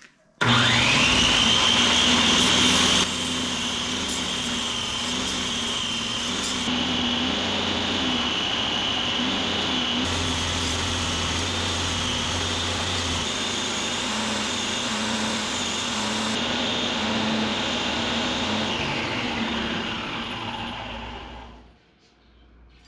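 Electric power tool motor starting with a quick rising whine, running steadily at a high whine, then winding down with a falling whine near the end.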